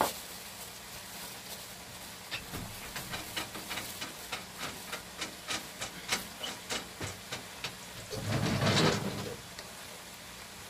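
Shishito peppers and anchovies sizzling in a frying pan on a portable gas burner: a steady hiss with a run of small pops and crackles, then a louder, noisier burst about eight seconds in.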